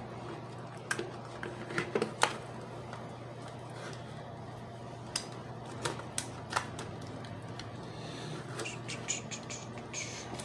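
Irregular light clicks and ticks of thin steel street-sweeper bristles scraping and catching in the seam of a plastic power-bank case as it is pried at, with a few sharper clicks about two seconds in. A low steady hum runs underneath.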